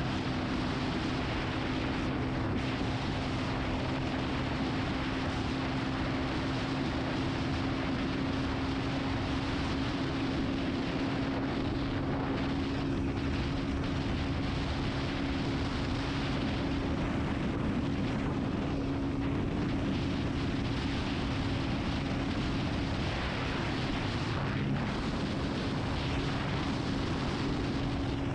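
Benelli TNT 25's single-cylinder engine running at a steady cruise, its note held at a nearly even pitch that wavers briefly near the end. A steady rush of wind noise lies over it.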